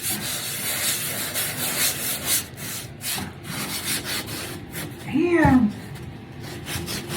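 Drywall being sanded by hand, a scratchy rubbing made of repeated strokes. About five seconds in there is a brief vocal sound that falls in pitch, the loudest moment.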